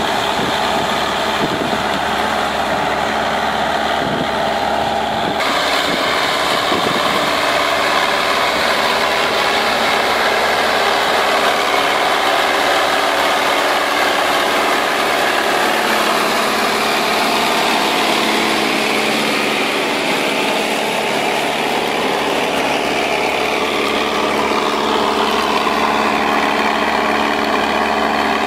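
Deutz-Fahr tractor's diesel engine running steadily under load while pulling a 28-disc offset disc harrow through the soil.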